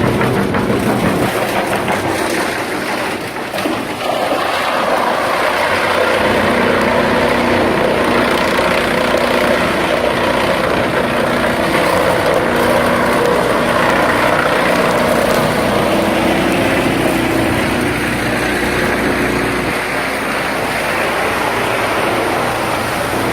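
Wood-chip production line machinery, such as a drum wood chipper and its conveyors, running continuously with a steady hum and a dense mechanical noise. The noise thins briefly about three seconds in, then fills out again.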